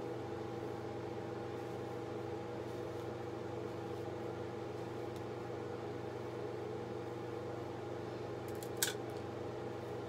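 Steady mechanical hum with several fixed tones, with a single sharp click near the end.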